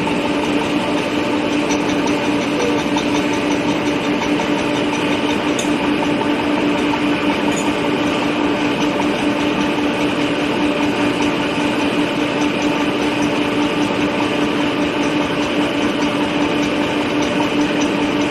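Compressed-air well-drilling rig running: a loud, unbroken machine drone with a strong steady hum that holds the same pitch throughout.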